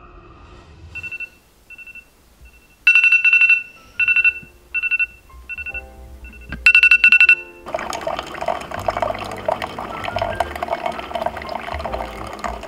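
Smartphone alarm going off: short, high beeps in repeated groups, quiet at first and much louder from about three seconds in. From about eight seconds in, a single-serve pod coffee maker brewing, coffee streaming into a steel tumbler.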